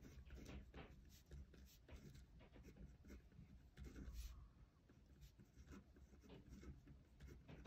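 Faint scratching of a pen writing on paper, a string of short irregular strokes.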